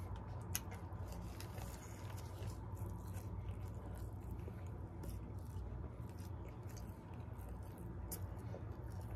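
A person chewing a mouthful of bacon cheeseburger close to the microphone, with a few small mouth clicks, over a low steady hum.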